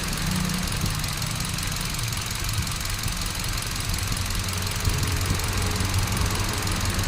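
2017 Hyundai Accent's four-cylinder engine idling steadily while misfiring: one cylinder's ignition coil is not firing.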